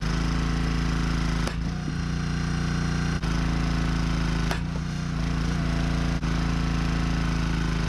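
Echo Bearcat hydraulic log splitter's small gas engine running steadily, its pitch wavering twice under load as the ram drives rounds into the wedge. Four sharp cracks as the wood splits apart and pieces drop.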